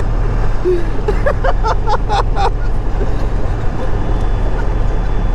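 Ford 7.3L Power Stroke turbodiesel V8 pulling the truck down the road, heard from inside the cab as a steady, loud low drone mixed with road noise.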